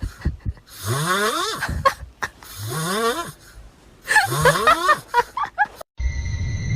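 A pet animal making three raspy vocal calls about a second and a half apart, each rising steeply in pitch. Near the end the calls give way to music with steady held tones.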